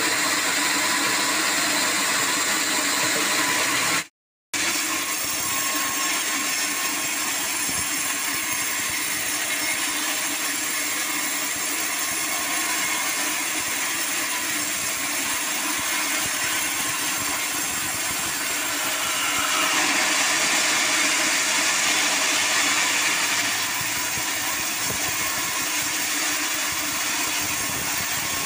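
Band sawmill running, its blade cutting lengthwise through a hard acacia log with a steady mechanical noise. It cuts out for half a second about four seconds in, and runs a little louder between about twenty and twenty-four seconds.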